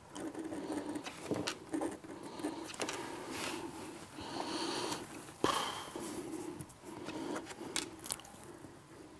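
Ballpoint pens writing on paper on a desk: soft scratching and rustling, with one sharp tap about five and a half seconds in.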